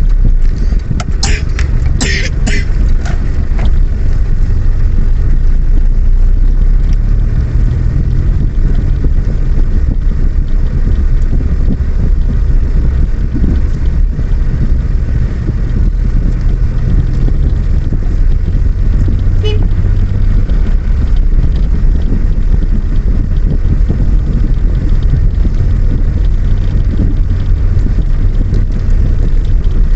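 A moving road vehicle: a loud, steady low rumble of travel noise. A few short, sharp sounds come about one to three seconds in.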